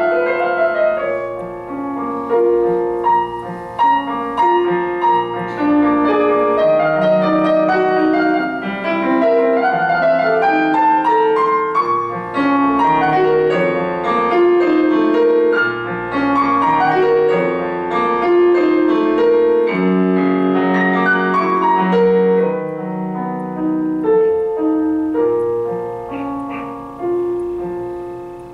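Solo piano music played on a Yamaha digital piano: a continuous passage of many overlapping notes, melody over a moving bass.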